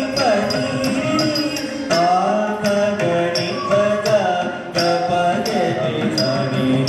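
Carnatic music accompanying a Bharatanatyam dance: a voice sings a melody over steady, evenly spaced percussion strokes with a bright metallic ring.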